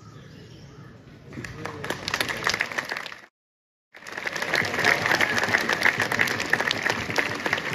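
Large crowd of seated schoolchildren applauding, beginning about a second and a half in. The applause cuts out abruptly for about half a second, then resumes louder and thins out near the end.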